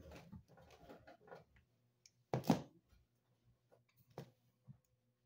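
Pliers and a sheet-metal access cover clanking against the back panel of an electric range as the cover is fitted: soft handling rustle, then one sharp metal knock about two and a half seconds in and two lighter clicks near the end.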